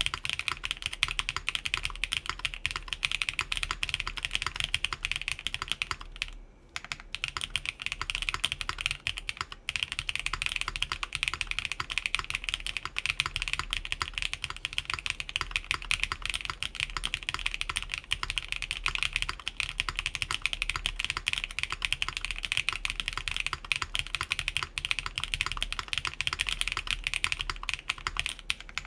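Fast, continuous typing on an Atelier Magnus Slate Zero mechanical keyboard with factory-lubed Keygeek Blue Cheese v2 switches, an aluminum plate and DSA keycaps, with plate and case foam installed. The typing stops briefly about six seconds in, then resumes.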